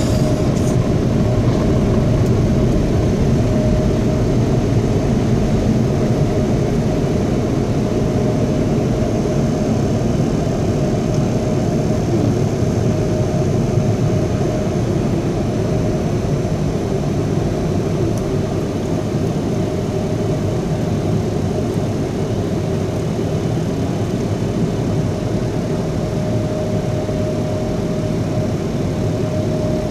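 Automatic car wash dryer blowers running, a steady loud rush of air with a faint steady whine underneath, heard from inside the car.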